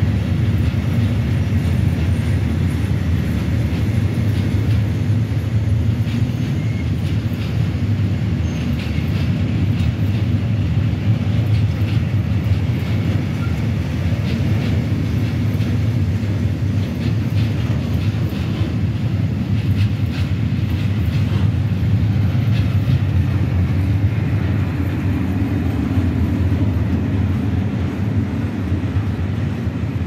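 Eas high-sided open freight wagons rolling past, their steel wheels making a steady low rumble on the rails.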